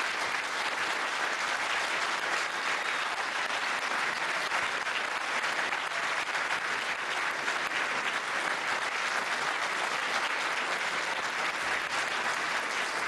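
A large audience applauding: dense, sustained clapping at a steady level.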